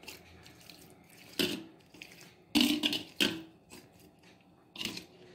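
A spoon stirring and scooping oily mango pickle in a bowl: four short, sudden wet squelches and scrapes, the loudest just past the middle.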